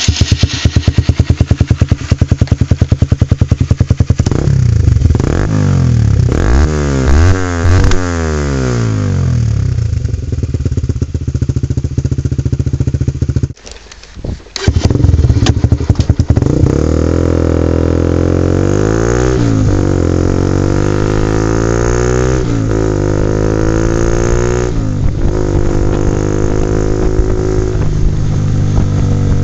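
Honda CBR150R's carbureted 150cc single-cylinder engine running through an NJT Racing tri-oval exhaust with its dB killer removed, under way and accelerating through the gears. The pitch climbs and drops with each shift, and the engine is briefly much quieter about halfway through before pulling hard again.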